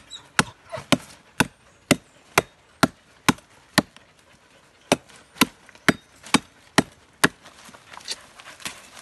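Machete chopping into a rotten log, sharp strikes about two a second, with a pause about four seconds in before another run of strikes that grow fainter near the end.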